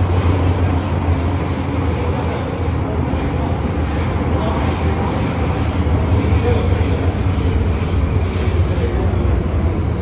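Interior running noise of an MTR M-train electric multiple unit between stations: a steady low rumble with a faint high-pitched wheel squeal that comes and goes midway.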